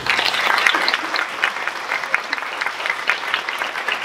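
Audience applauding: many people clapping at once, breaking out suddenly and carrying on steadily.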